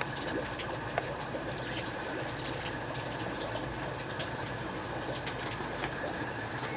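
Steady background hum and noise with many faint, scattered clicks and ticks.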